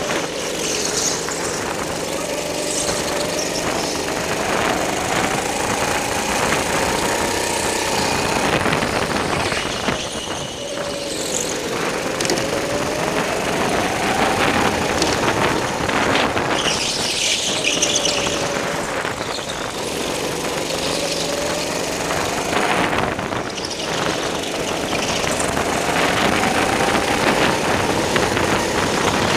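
Go-kart engine heard from the kart itself, its pitch climbing and dropping again and again as the kart speeds up and slows down. Now and then there is a short tyre squeal, the biggest a little past halfway.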